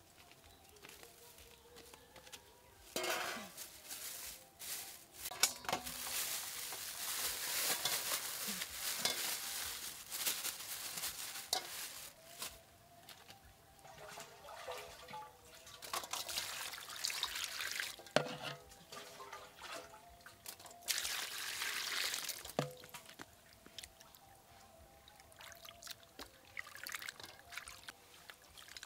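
Water pouring and splashing in a metal bowl as skinned frogs are rinsed by hand, in several bouts of a few seconds each, with a few knocks against the bowl.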